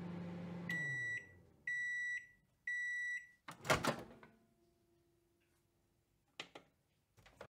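Microwave oven running with a steady hum that winds down and stops. It then beeps three times to signal that cooking is done, and the door latch pops open with a loud clunk. A couple of faint clicks follow near the end.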